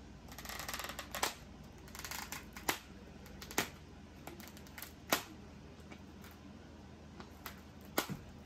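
Plastic film on a tray of cube steak crinkling twice in the first few seconds, with sharp clicks of the plastic packaging scattered through, about five louder ones, as pieces of meat are pulled from it.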